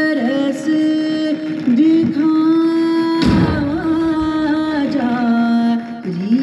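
A singer holding long, ornamented notes of a Hindi devotional song over instrumental accompaniment, with one sudden hit about three seconds in.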